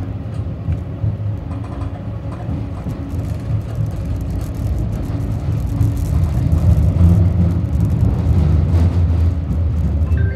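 Tram running, heard from inside the car: a steady low rumble of the wheels on the rails and the running gear, with a faint hum, growing louder about six seconds in.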